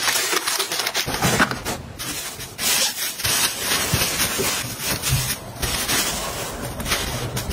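Close-up rubbing and rustling of things being handled: packets pushed into a suitcase's mesh pocket, then the soft fabric of a plush toy squeezed and rubbed.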